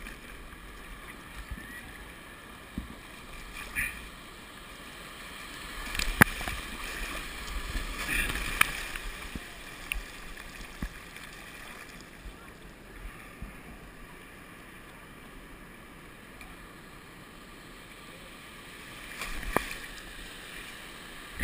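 Muffled rush of breaking surf and whitewater heard through a waterproof action-camera housing. A few sharp knocks and splashes break through, the loudest about six seconds in.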